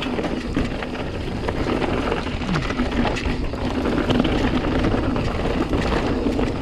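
Mountain bike descending a loose, rocky dirt trail: tyres rolling over gravel and rock while the bike rattles with many small clicks, over steady wind noise on the camera microphone.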